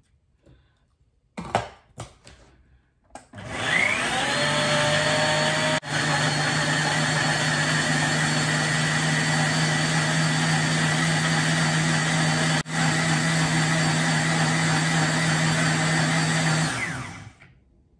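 Countertop blender blending whole strawberries with milk. After a couple of clicks, the motor starts about three seconds in with a rising whine as it spins up. It then runs steadily, with two momentary drops, and winds down about a second before the end.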